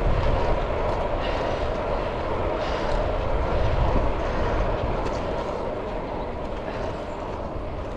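Wind rushing over a handlebar-mounted action camera's microphone as a road bike rolls along a tarmac lane, a steady noise with a low rumble from the tyres.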